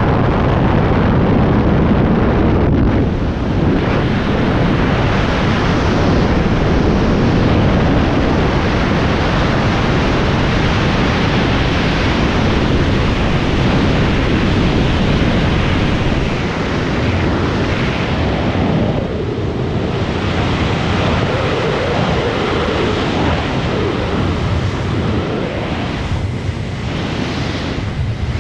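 Freefall wind rushing and buffeting over a skydiver's camera microphone: a loud, steady roar, easing slightly in the second half.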